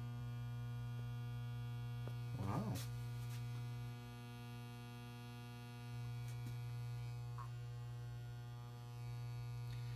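Small sonic cleaner, its tank filled with distilled water, running with a steady electric hum from its vibrator. The hum drops in level for a couple of seconds midway, then returns.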